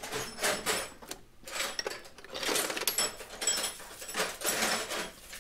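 Metal sockets, ratchets and wrenches clattering and clinking as they are rummaged through in a tool chest drawer, in irregular rattles with short metallic rings.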